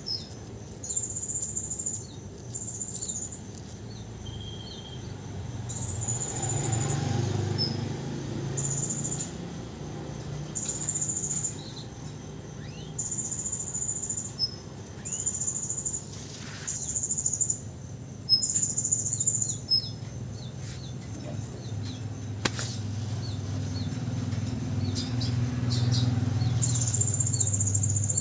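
Domestic canary singing freely, with short high trills repeating every second or two and brief chirps between them. This is a canary just out of its moult and already in full song.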